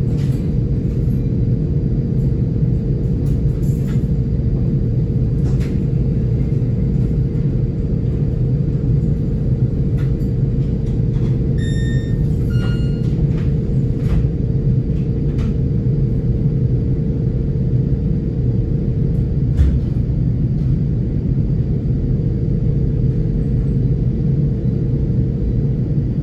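Steady low rumble inside a passenger coach of a moving train, with a constant hum and occasional faint clicks.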